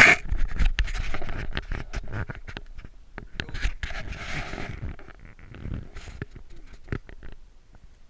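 Handling noise from an action camera being picked up off the snow and moved around: scraping, rubbing and irregular knocks on the camera, loudest at the start and fading over the last couple of seconds.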